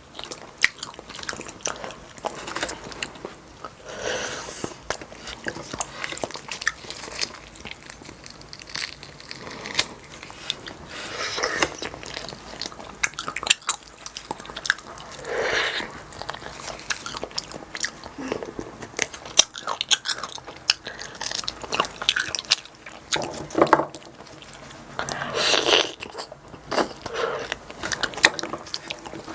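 Close-miked eating of pork back-bone stew with rice: wet chewing and biting with many small clicks, and a handful of louder, longer smacking sounds spread through.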